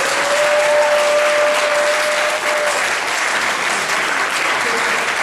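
Audience applauding steadily. A single steady tone is held over the clapping for about the first two and a half seconds.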